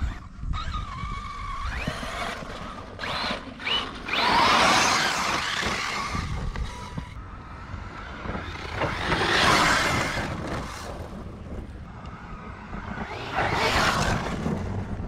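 ARRMA Mojave RC desert truck's brushless electric motor whining as it speeds up, rising in pitch early on, then the truck passes close three times, about four, nine and fourteen seconds in, each time with its tires spraying sand.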